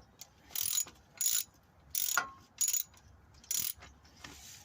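Ratchet wrench turning a bolt into the lower engine mount in short strokes, about six in a row, each a brief burst of clicking.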